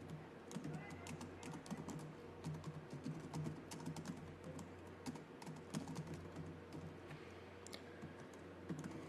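Laptop keyboard typing: irregular runs of faint key clicks as text is entered, over a steady low hum.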